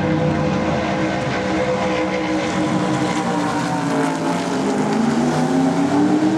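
NASCAR stock car's V8 engine running at speed as the car passes close by on the track. The engine note dips as it goes past, then climbs again near the end.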